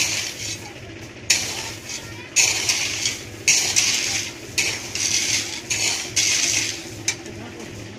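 Repeated metallic clattering and scraping, a sharp burst about once a second, over a steady low engine hum.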